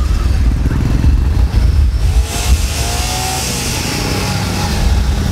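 Low-speed engines of parade vehicles, a side-by-side buggy and a car, driving past close by: a low pulsing rumble, with a rushing hiss as a vehicle goes by about two seconds in.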